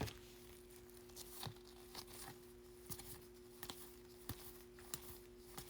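Faint rustling and light clicks of trading cards and plastic card sleeves being handled, over a faint steady hum.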